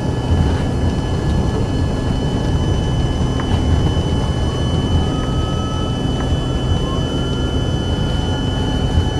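Cabin noise inside an Embraer ERJ-145 rolling on the runway: its rear-mounted Rolls-Royce AE 3007 turbofans give a steady high whine over a heavy low rumble of the airframe and wheels.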